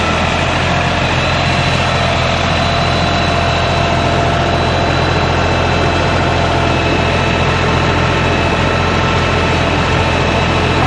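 An engine running steadily at an even speed, with a constant low hum and a few fixed higher tones above it.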